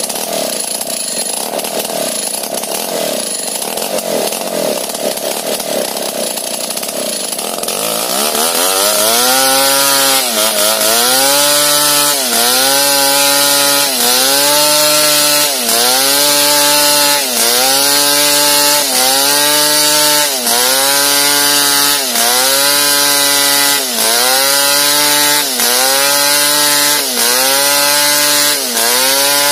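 Chainsaw ripping a bangkirai hardwood log lengthwise along the grain, the engine running under load. After about eight seconds the engine note settles into a steady rhythm, its pitch dipping and recovering roughly every second and a half.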